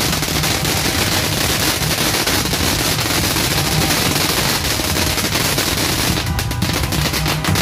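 New Year's Eve fireworks and firecrackers going off in a dense, rapid crackle of many bangs, with music playing underneath. About six seconds in the crackle thins into more separate bangs.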